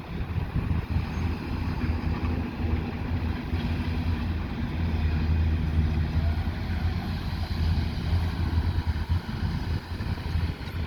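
Excavator's diesel engine running steadily with a low hum.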